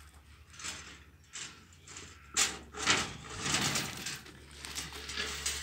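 Irregular scuffing and knocking as a horned animal pushes its head into an old rubber car tyre on dirt ground, the sharpest knock about two and a half seconds in, followed by a stretch of rustling and scraping.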